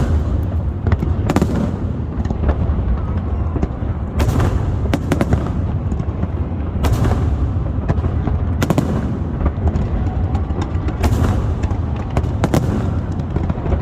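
Fireworks display: an irregular series of sharp bangs and crackles, some closely bunched, over a continuous low rumble.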